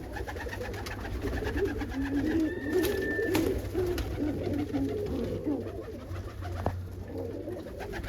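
Domestic pigeons cooing continuously in a loft, several birds overlapping, with a few sharp clicks among them.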